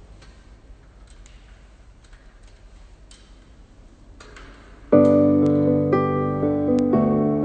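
Quiet room hum with a few faint clicks. Then, about five seconds in, keyboard music starts abruptly and loudly, with held chords changing every second or so.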